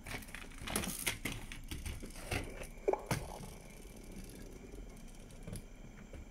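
Small clicks and knocks of die-cast toy police cars being picked up, rolled and set down on a table and wooden toy track, busiest in the first three seconds, with one short squeak about three seconds in. After that only faint handling rustle.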